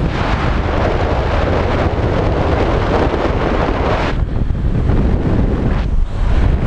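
Airflow rushing over the camera's microphone during a speed-wing flight: loud, steady wind noise that is heaviest over the first four seconds, then eases a little.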